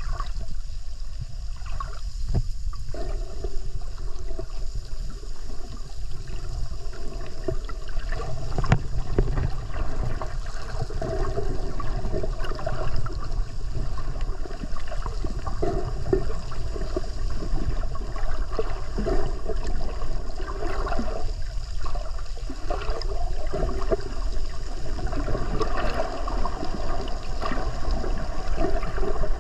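Muffled underwater sound picked up by a camera below the surface: water sloshing and gurgling past it over a steady low rumble.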